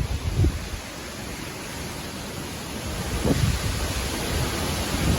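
Strong storm wind blowing, with gusts buffeting the microphone in low rumbles. The wind strengthens about three seconds in.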